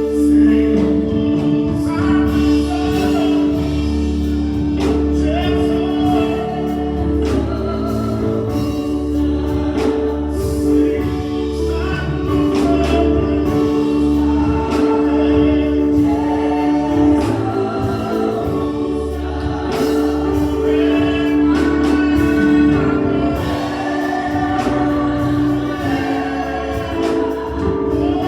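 Gospel praise and worship: a choir singing over sustained keyboard chords and a steady bass beat.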